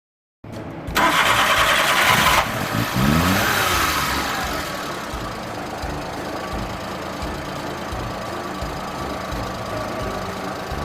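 Suzuki Multicab's F6A three-cylinder engine starting: a loud burst about a second in, a brief rise in revs around three seconds in, then settling to a steady idle.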